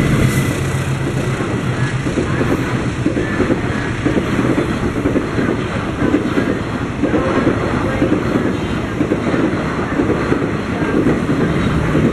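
Passenger train passing close by: the rear of a CC 206 diesel-electric locomotive goes past at the start, then a string of passenger coaches rolls by, their wheels running steadily on the rails.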